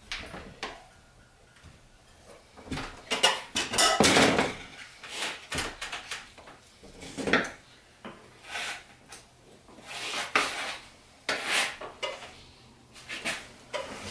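Flathead screwdrivers clinking and scraping against a moped wheel rim while levering the tire onto it, in irregular knocks and scrapes.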